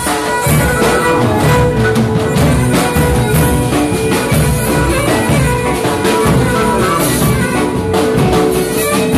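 Live Pontic Greek dance music from a small band: Pontic lyra and keyboard over daouli and drum kit, with drum strikes keeping a steady beat under held melody notes.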